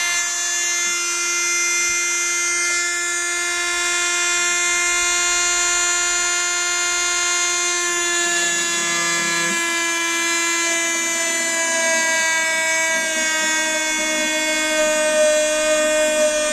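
A small electric drill whining steadily as it bores holes into a guitar neck to fix a crack. Its pitch sinks slightly in the second half as the bit loads up in the wood.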